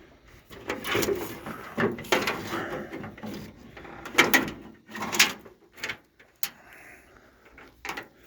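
A hood release cable being handled and pulled free: scraping and sliding for the first few seconds, then several sharp clicks and knocks.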